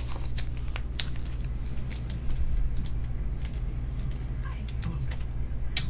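A trading card being handled and slid into a thin plastic penny sleeve: soft plastic rustling and a few small sharp clicks, over a steady low hum.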